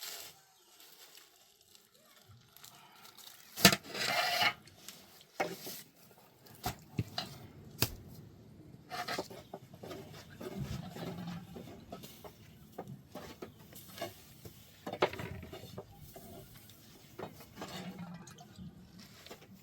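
Dishes and utensils being handled: scattered clinks and knocks, with a sharp knock a little under four seconds in followed by a brief scraping noise, and another sharp knock about fifteen seconds in.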